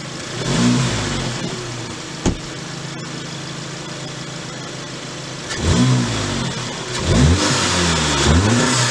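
VW Mk7 Golf GTI's turbocharged 2.0-litre four-cylinder, fitted with a Borla S-Type exhaust and APR intake, idling and being revved while parked: one rev about half a second in, then a quick series of revs from about five and a half seconds on. A single sharp click a little after two seconds.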